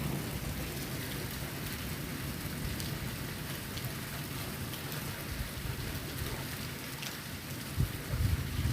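Heavy rain falling, a steady hiss of rain, with a few short low rumbles near the end.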